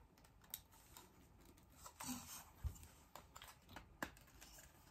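Faint, scattered plastic clicks and taps as a small LED video light is handled and slid onto a smartphone holder, with one dull low thump about halfway through.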